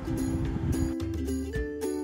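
Background music: a simple melody of held notes stepping between pitches over a light beat.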